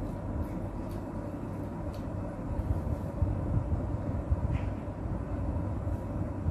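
Steady low rumble of background noise, with a few faint short clicks of a person chewing food with the mouth closed.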